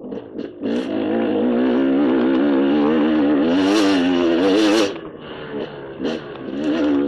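KTM dirt bike engine under changing throttle. It backs off briefly at the start, then pulls steadily for about four seconds with a loud hiss near the end of that pull. It drops away, blips once, and picks up again near the end.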